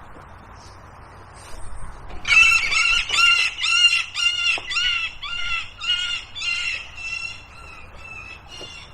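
A bird giving a rapid series of loud, harsh squawks, about two or three a second, starting about two seconds in and fading toward the end. The calls come as a bird of prey seizes a pigeon from a tree.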